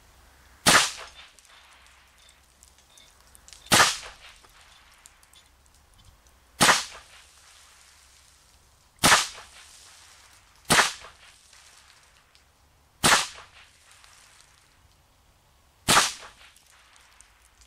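Seven .22 Long Rifle shots fired one at a time from a Bushmaster Carbon-15 AR-style rifle converted with a .22 LR bolt, two to three seconds apart, each a sharp crack with a short echo.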